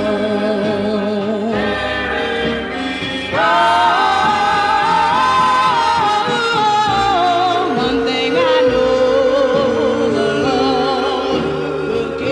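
Gospel vocal group singing together, played from a 1958 78 rpm record. About three seconds in the voices come in louder on higher held notes.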